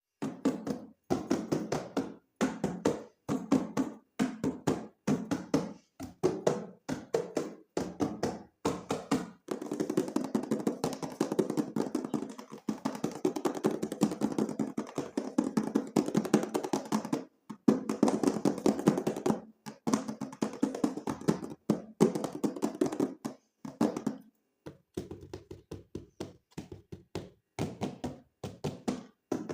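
Hands handling plastic toy figures and packaging: many short taps, clicks and knocks, running into denser clattering through the middle and thinning to lighter taps near the end.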